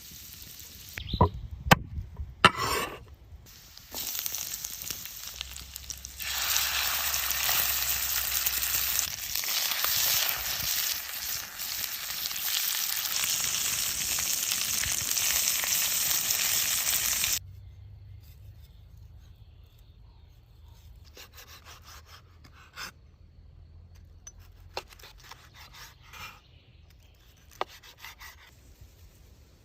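Food sizzling as it fries in hot oil in a pan, a loud even hiss that stops suddenly about two-thirds of the way through. A few sharp clicks and knocks come before it, and faint scattered clicks after.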